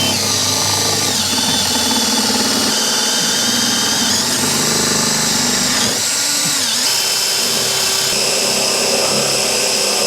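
Power drill boring a hole through two layers of 3/4-inch wood, running continuously, its motor pitch sagging and recovering several times as the bit loads up in the wood.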